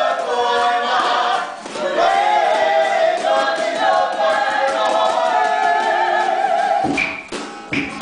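A group of voices singing a Māori song together for a poi dance. About seven seconds in, the singing stops and gives way to two short shouted calls and a quick, even run of taps from the poi balls striking.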